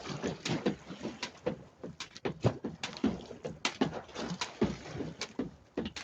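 Irregular sharp slaps of a jump rope hitting the floor, about one to two a second, mixed with short gurgling water sounds that drop in pitch.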